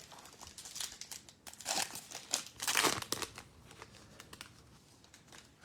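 Irregular crinkling of a trading-card pack's wrapper being handled and torn open, busiest in the first few seconds and fading out near the end.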